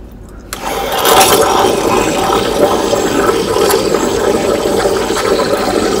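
Espresso machine steam wand opened about half a second in, then a steady, loud hiss of steam frothing milk in a stainless steel pitcher.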